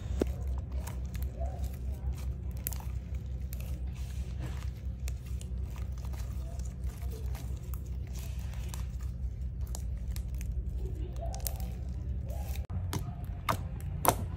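White-glue slime being stretched, folded and squeezed by hand, giving a run of sticky crackles and small clicks. Near the end a finger pokes into the slime, making a few louder pops.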